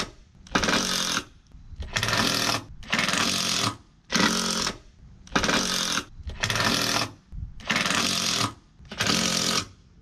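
Cordless impact driver hammering in short bursts of about half a second, roughly once a second, as it works to back out the bolts of a mast's kicker fitting.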